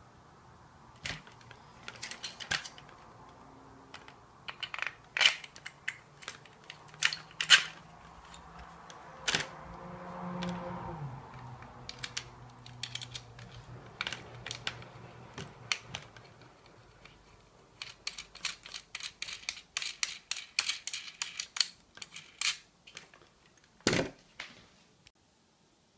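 Hard plastic clicks and knocks from handling and fitting together the parts of a plastic elevated dog bowl stand: legs pushed into their sockets and bolts and knobs set into the arms. Scattered single clicks give way to a quick run of clicks about eighteen seconds in, then one loud knock near the end.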